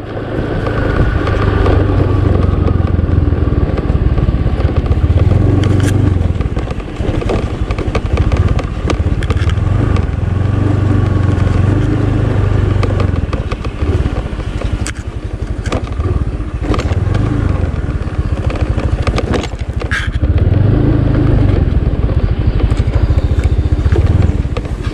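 Honda motor scooter's small engine running while ridden slowly over a rough track, its note swelling and easing in turns with the throttle. Frequent sharp knocks and rattles ride over it as the scooter bumps along.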